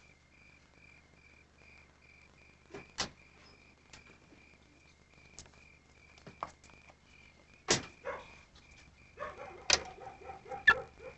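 Night ambience: a high chirp repeating steadily about twice a second, crickets. Over it come a few sharp knocks and clunks around a parked car, the loudest near the end, and in the last seconds a quick run of short pitched calls.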